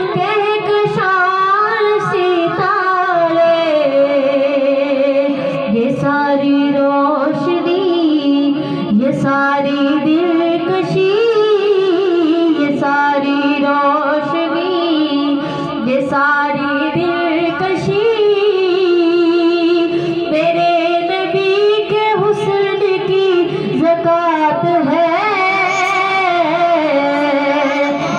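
A woman singing a naat, an Urdu devotional song in praise of the Prophet, into a handheld microphone, in long melodic lines with wavering, ornamented pitch.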